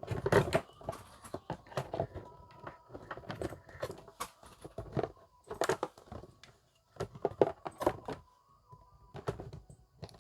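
Irregular clicks, knocks and rattles of hands handling a small Bluetooth speaker and its cable while it is being connected. A faint steady tone comes in near the end.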